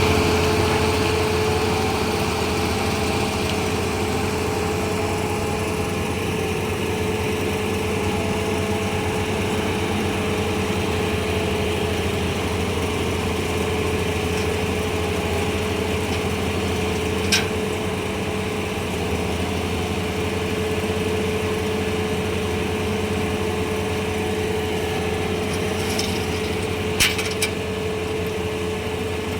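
Heavy diesel construction machinery running steadily at a constant pitch, with a steady whine over the engine. A sharp knock comes about seventeen seconds in, and two more come close together near the end.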